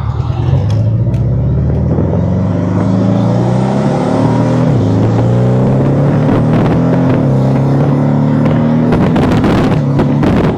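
Porsche 718 Cayman's turbocharged flat-four, fitted with an aftermarket turbo inlet pipe, heard from inside the cabin while accelerating. The pitch climbs steadily, drops once about five seconds in as with an upshift, and climbs again. A quick run of sharp clicks comes near the end.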